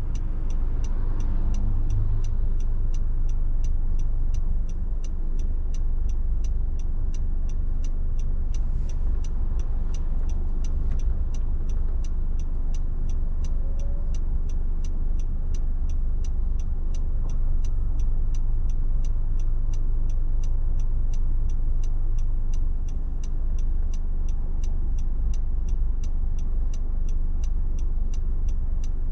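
Steady low road and tyre rumble of a car driving, heard from inside, with a faint regular ticking at about two ticks a second throughout.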